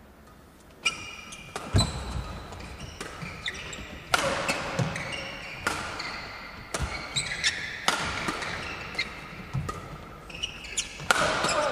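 Badminton rally: sharp cracks of rackets striking the shuttlecock about every one to two seconds, with court shoes squeaking on the floor between shots.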